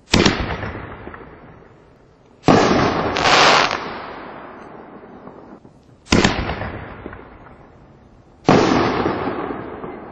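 Artillery shell fireworks fired from a mortar tube, two shells in turn: each gives a sharp launch bang, then about two and a half seconds later a loud burst. Each of the four bangs rings out and dies away slowly.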